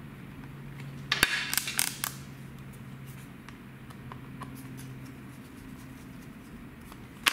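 Precision screwdriver working a tiny screw into the plastic base of a Dell XPS 12 laptop: a quick cluster of light clicks and scrapes about a second in, then a single click near the end.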